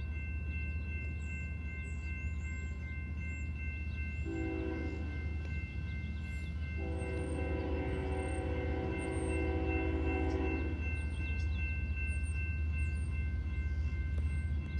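BNSF locomotive horn sounding from an approaching train still far down the line: a short blast about four seconds in, then a long blast of about four seconds, over a steady low rumble.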